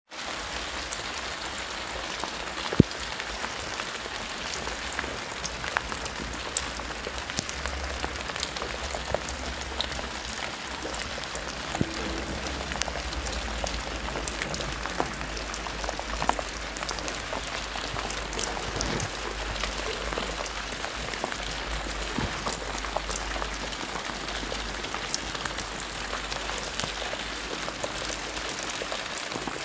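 Steady rain falling on leaves and grass: an even hiss dotted with many small drop ticks, with one sharper tap about three seconds in.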